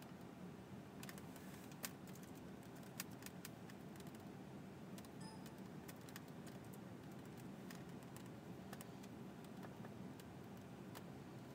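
Faint typing on a computer keyboard and mouse clicks: irregular short clicks, a couple of them sharper about two and three seconds in, over a steady low background hum.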